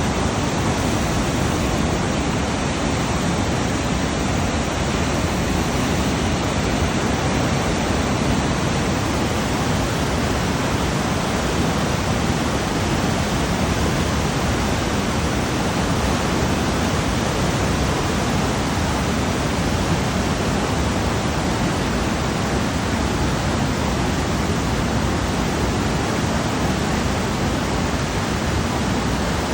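Fast water of the Niagara River rushing, a steady, unbroken noise.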